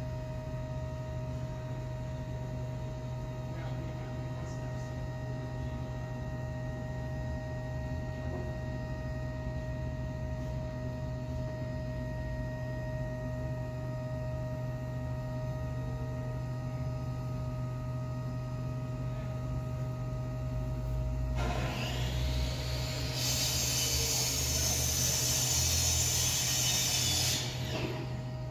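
M1A2 Abrams tank's gas turbine running with a steady humming whine of several tones. About three quarters of the way through, a loud rushing hiss sets in and fills the high end, then cuts off suddenly near the end.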